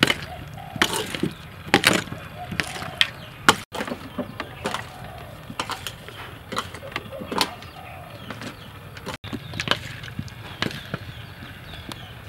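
Metal spoons stirring sauce-coated peanuts on a metal tray: irregular clinks and scrapes of metal on metal, with the nuts rattling.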